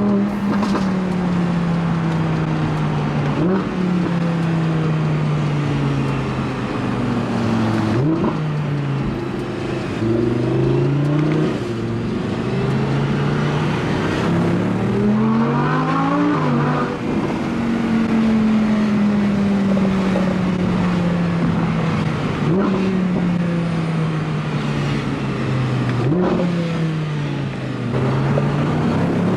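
Audi R8's V10 engine running as the car drives, its pitch climbing under acceleration and sinking as it slows, with several sudden jumps in pitch like quick gear changes.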